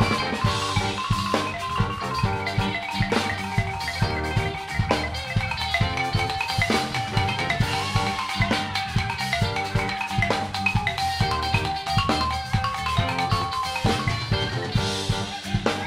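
Live band music led by a balafon, its wooden keys struck in fast repeating figures over a drum kit beat. A single note is held for several seconds in the middle.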